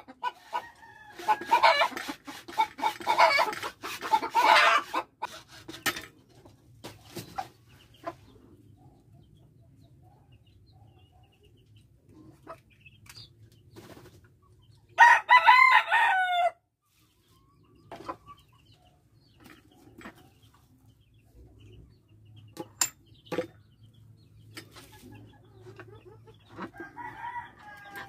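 A hacksaw cuts a white plastic pipe held in a vise, in quick uneven strokes for the first five seconds or so. About fifteen seconds in, a rooster crows once, loud and about a second and a half long. Scattered light clicks and taps follow as the cut pieces are handled.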